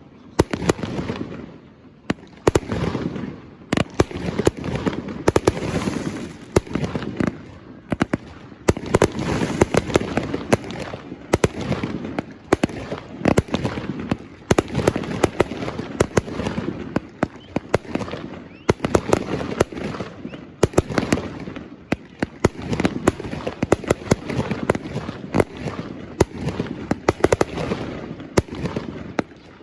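Aerial fireworks going off in quick volleys: many sharp bangs and crackles over a rolling rumble, with short lulls between bursts.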